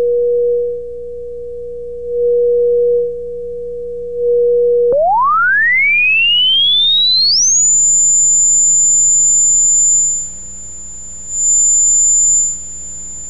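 Electronic tone generator playing a pure test tone through a small speaker: a steady low tone, then a click about five seconds in and a smooth rising sweep up to a steady very high tone. The tone grows softer four times, twice on the low tone and twice on the high one, as a phone book is held between the speaker and the listener; the high tone drops off a little more, since high frequencies bend around the book less easily.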